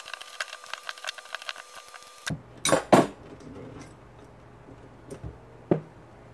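A wrench working the screw of a small gear puller on a shop vac motor's armature shaft, a fast run of metal clicks. Then two loud knocks a few tenths of a second apart, about two and a half seconds in, and one more near the end, as the metal puller and armature are handled and put down on the workbench.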